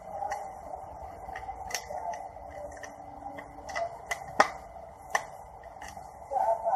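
Irregular sharp clicks and knocks of metal tools and parts being handled, one louder knock about halfway through, over a steady hum.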